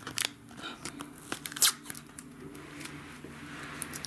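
Plastic crinkling and tearing with scattered sharp clicks as a DVD case and its wrapping are handled, with one louder snap about a second and a half in.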